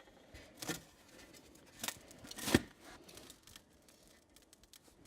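Dry ice on a metal cookie sheet giving a few scattered sharp cracks, with no ringing tone; the loudest crack comes about two and a half seconds in.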